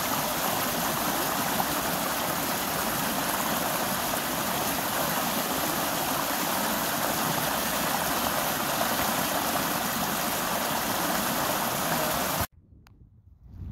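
Small mountain creek pouring over a fallen log in a low cascade: a steady rush of splashing water that cuts off abruptly near the end.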